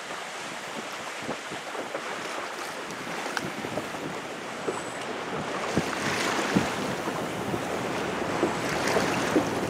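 Wind buffeting the microphone over water rushing and splashing around a boat under way. The rush grows louder about halfway through.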